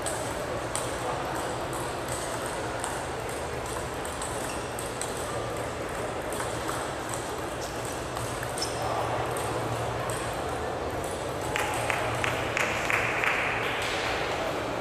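Table tennis ball clicking: sharp single ticks off the bats and table during play, with a quicker run of ticks about three-quarters of the way through. A low murmur of voices runs underneath.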